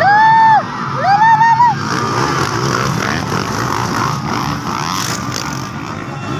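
Two loud, high-pitched yells from spectators in the first two seconds. Then a pack of motocross dirt bikes revs past, several engines overlapping and rising and falling in pitch.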